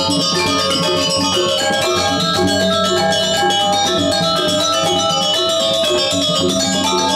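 Balinese gamelan pelegongan ensemble playing: bronze-keyed metallophones struck with mallets in a fast, even stream of ringing notes over sustained lower tones.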